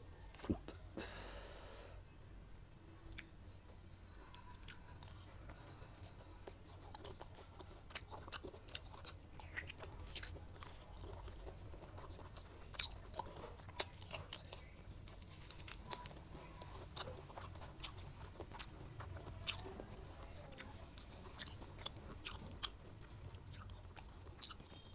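A person chewing soft, ripe jackfruit bulbs close to the microphone: wet chewing and lip smacks with many short sticky clicks scattered throughout, one sharper click about two-thirds of the way through.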